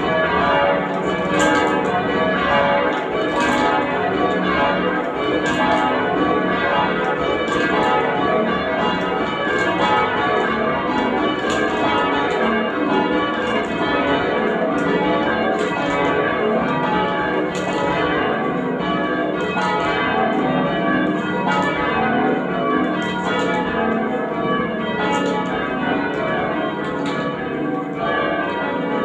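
A ring of ten church bells in change ringing, struck one after another in a continuous, even stream of strokes with no pause.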